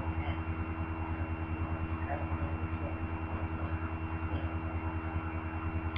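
Steady low hum with a fast, even pulsing to it and a faint high-pitched steady tone over it.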